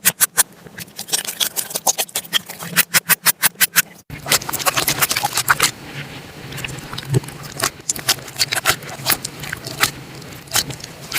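Slime being pressed and worked by hand, giving rapid runs of sharp pops and crackles. About four seconds in the sound breaks off for an instant and resumes as denser crackling.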